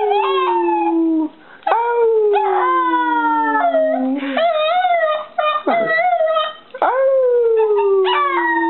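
Beagle puppy howling: three long howls, each sliding down in pitch, with short yelps in between.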